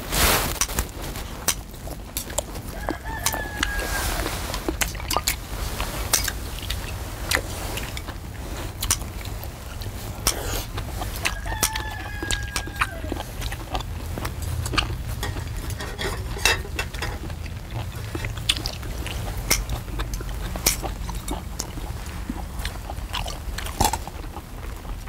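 Scissors, metal tongs and chopsticks clicking and clinking against a large shallow cooking pan as seafood is cut and served, with eating noises. A rooster crows twice in the background, a few seconds in and again about twelve seconds in.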